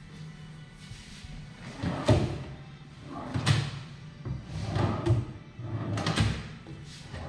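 Cabinet drawers being pulled open and pushed shut several times, each a short slide ending in a knock, the loudest about two and three and a half seconds in. Background music plays underneath.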